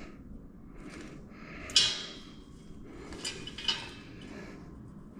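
Metal exhaust pipe sections clinking as they are handled: one sharp clank with a short ring a little under two seconds in, then two lighter clinks.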